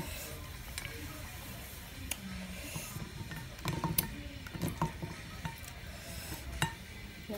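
Scattered small clicks and scrapes of a metal spoon against a plate as cooked fish is picked apart, coming in a cluster about four seconds in and once more near the end.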